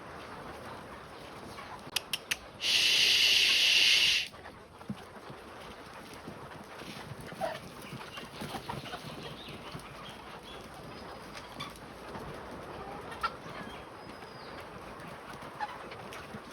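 White pullet chickens calling faintly and scattered through the flock. A few sharp clicks come about two seconds in, then a loud burst of high, even noise lasting about a second and a half.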